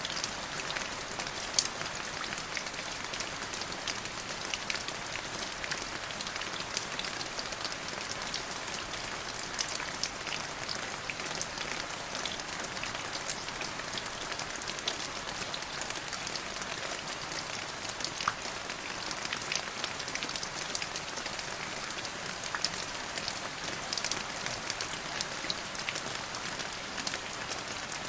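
Steady rainfall, an even hiss of rain with many separate sharp drop impacts scattered through it.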